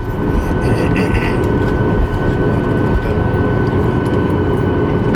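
Cabin noise of a Boeing 737 MAX 8 taxiing after landing: its CFM LEAP-1B engines run at idle as a steady low rumble with a constant high-pitched whine on top.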